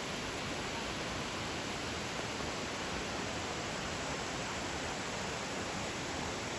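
Waterfall, water falling and rushing in a steady, even hiss that does not change in level.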